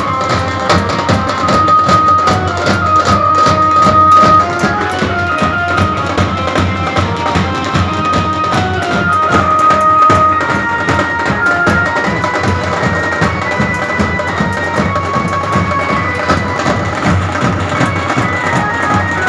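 Street drum band playing: large double-headed drums and steel-shelled drums beaten with sticks in a fast, dense rhythm, with a high melody of held, stepping notes above the drums.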